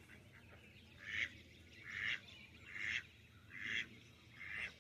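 Domestic duck quacking five times in a regular series, one short raspy quack about every second.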